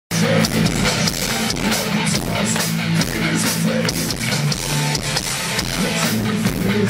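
Live rock band playing loud, with electric guitars and a drum kit, amplified through a concert sound system.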